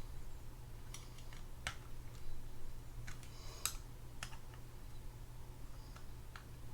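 Irregular light clicks and taps of a small screwdriver and metal reel parts as small screws are snugged down on a Penn Spinfisher 8500SS spinning reel, over a faint steady low hum.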